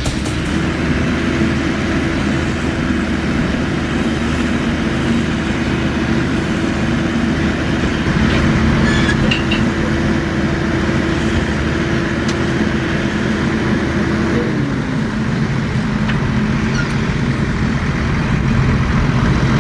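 Sound effect of a large farm machine's diesel engine running steadily under load. Its note drops slightly about three-quarters of the way through.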